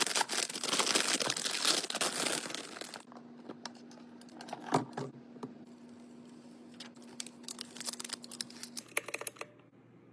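Packaging being unwrapped by hand: plastic crinkling and tearing, loud and dense for about three seconds, then scattered rustles and clicks.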